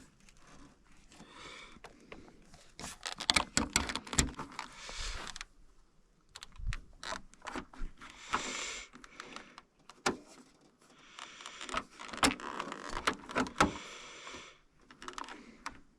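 Handling noises from a snowflap being held up and test-fitted to the back of a snowmobile: scattered clicks and knocks with stretches of rustling and scraping.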